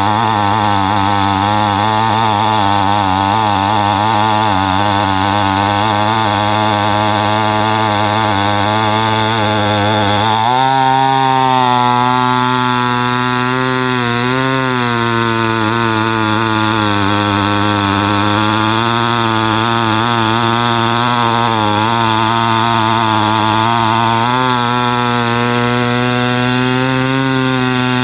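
McCulloch 797 engine driving an 895 gear-drive chassis through a 2:1 gear reduction, running under load as the chain bucks through a large round of dry oak. The engine note steps up about ten seconds in, then wavers now and then as the cut goes on.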